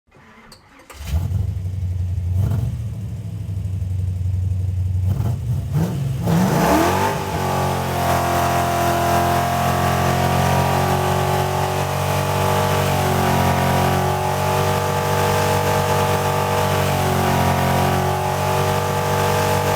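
An engine running: it starts about a second in, climbs steeply in pitch around six to seven seconds in, then holds a steady, higher speed.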